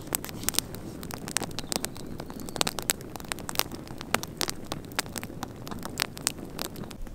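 Wood campfire of dry sticks crackling, with frequent irregular sharp pops over a low steady rush.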